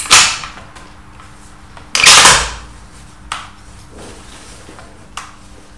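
A bolt-action rifle's bolt being worked by hand: two loud metallic strokes about two seconds apart, then a few lighter clicks.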